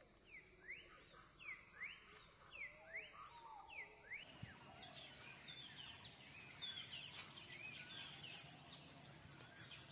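Faint birdsong outdoors. For the first four seconds one bird repeats a quick swooping call over and over; after that several birds chirp at once in a busier, overlapping chorus.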